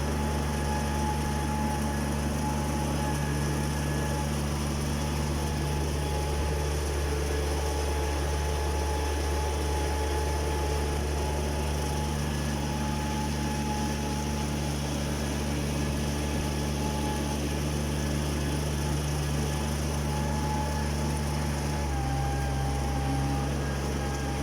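Engine of a rice transplanter running steadily, its low note shifting slightly about 22 seconds in.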